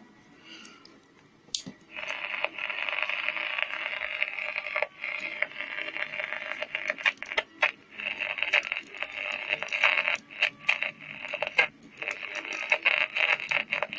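Olimpik 402 pocket transistor radio playing through its small speaker: a distorted, thin sound that starts about two seconds in and keeps breaking up as the tuning dial is turned. The signal is there but badly distorted, which the owner takes for a fault in the audio amplifier.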